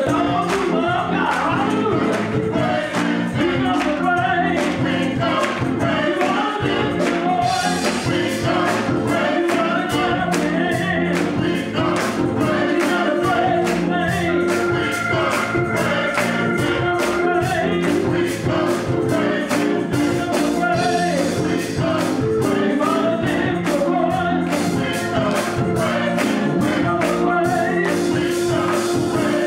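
Gospel choir singing with a live band, the drum kit keeping a steady beat.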